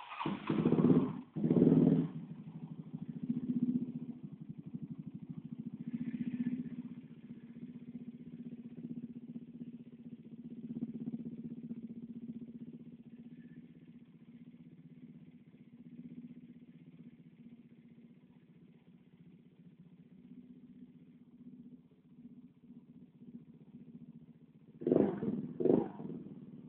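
Suzuki Burgman scooter engine running through an aftermarket Roncar aluminium SS exhaust. It comes in with two quick revs, settles into a steady idle, then is blipped several times in quick succession near the end.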